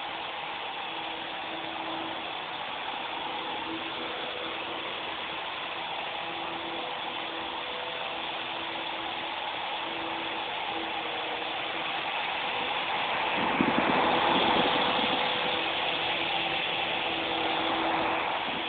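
Small remote-control helicopter's electric motor and rotors whirring steadily in flight. It grows louder for a few seconds about two thirds of the way through, with a fluttering rotor beat, and swells again briefly near the end.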